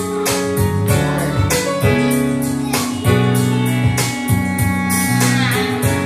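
A 12-volt car audio demonstration system with a Mapletech DSP playing a ballad through its bookshelf speakers: an instrumental passage of plucked guitar and held notes over a steady beat of about two hits a second.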